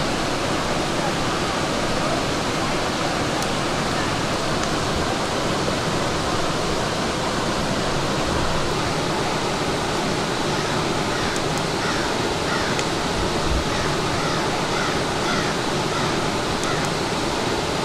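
Steady rush of a river. A bird calls repeatedly in short notes from about ten seconds in.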